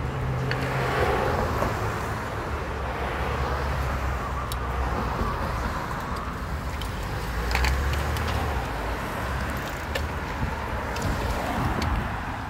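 Road traffic at a city intersection: car engines running with a steady low hum and cars passing, with a few faint clicks.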